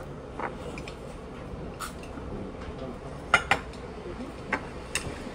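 Utensils clinking against plates and bowls while eating: about six short, sharp clicks and taps, the loudest a pair close together a little past halfway.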